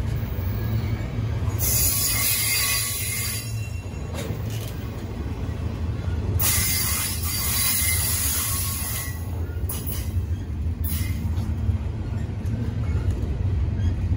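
Double-stack container train of well cars rolling past close by: a steady low rumble of steel wheels on rail. A high, hissing wheel screech comes in twice, for two or three seconds each time.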